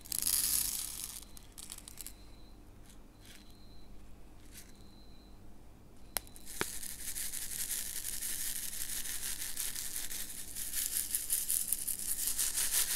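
Black round diamond-painting drills poured from a small plastic pot into a plastic sorting tray with a brief rattle, then a couple of sharp clicks about six seconds in. The tray is then shaken for the rest of the time, the many small drills rattling steadily against its plastic.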